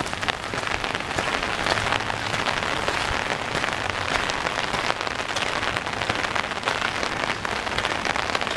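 Rain falling steadily, with many sharp raindrop taps close to the microphone.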